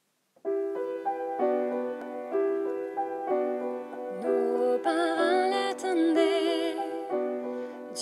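Piano playing a slow accompaniment in held chords, starting about half a second in. About four seconds in, a voice joins, singing the melody with vibrato over the piano.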